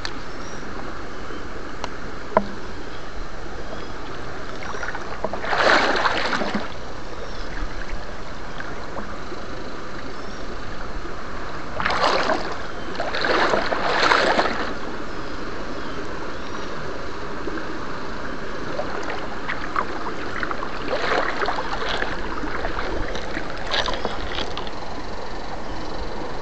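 Water splashing and sloshing over a steady hiss, with louder splashes about six seconds in, around twelve to fourteen seconds and again in the twenty-first to twenty-fourth seconds.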